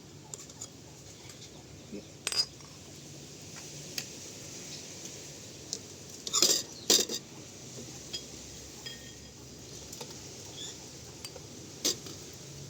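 Dishes and cutlery clinking now and then: a few sharp knocks, with a short cluster of clinks about halfway through.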